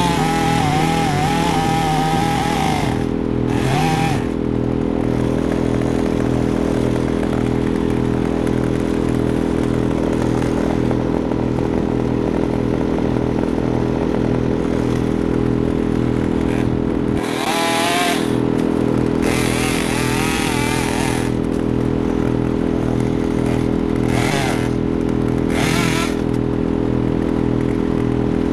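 Stihl top-handle two-stroke chainsaw revving as it cuts through a fallen log, in bursts at the start and several more in the second half. Another engine runs steadily under it throughout.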